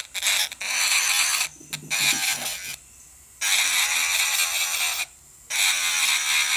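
Electric nail drill with a sanding band grinding the seam where two stacked plastic nail tips meet, in about four bursts of filing that stop and start as the band touches and leaves the nail.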